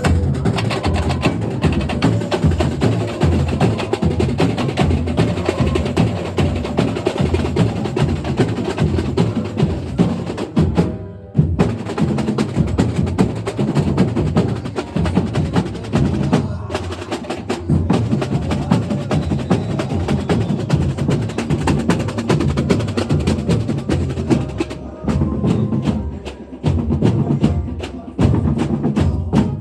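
Carnival comparsa drum section (batería) playing a fast, dense percussion rhythm of drums and wood-block-like strikes, with a short break about eleven seconds in and a few stops near the end.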